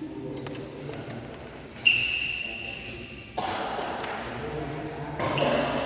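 Sounds of a badminton session in a hall: about two seconds in, a sudden high ringing ping fades away over a second and a half. People's voices murmur in the background.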